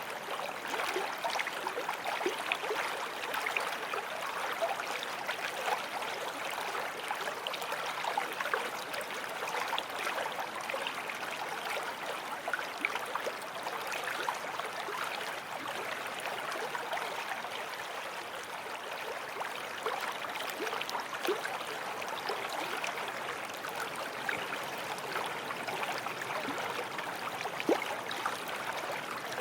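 Forest stream running steadily over stones, a continuous rushing with lots of small splashes and gurgles.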